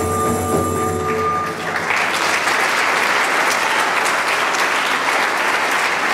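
The live instrumental ensemble's last held chord dies away about a second and a half in. Audience applause then breaks out and carries on steadily.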